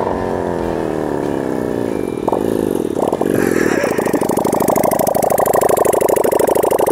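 Small V-twin motorcycle engine: its note falls as the bike slows and rolls to a stop, then settles into a steady, pulsing idle.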